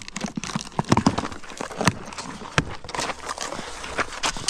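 Rustling and crinkling of packaging with scattered knocks and clicks, as a cardboard box of motorcycle parts is opened and the parts inside are handled.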